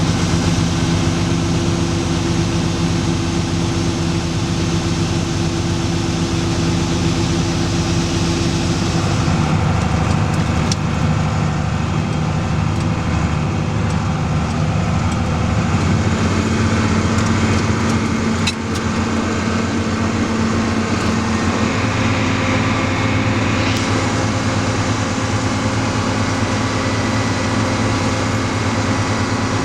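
Diesel farm tractor engine running steadily, its note shifting a few times as engine speed changes, with a couple of brief clicks.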